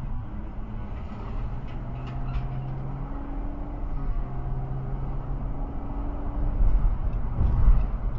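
Car engine and road noise heard inside a moving car. The engine hum climbs gradually several times and drops back about a second in and again around four seconds in, as the car accelerates. The low road rumble swells near the end.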